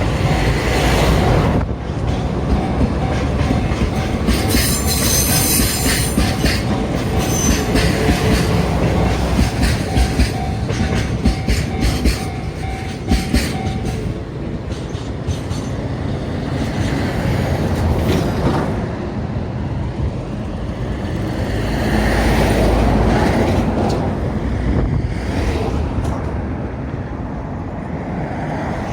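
Freight train rolling slowly through a railway level crossing, its wagons rumbling and clacking over the rails with a brief high wheel squeal early on. The crossing's warning bell rings in a steady repeating pattern and stops about halfway through.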